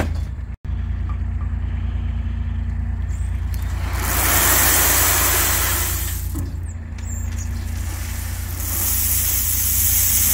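Mini dumper's engine running steadily as its skip tips, with 20 mm limestone chippings pouring out in a loud rushing hiss, once about four seconds in and again from about nine seconds.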